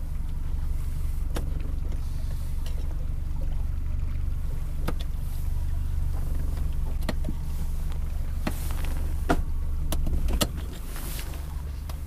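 A boat motor running steadily, a low even hum, with a few sharp knocks and clicks on top; it gets a little quieter at about ten seconds in.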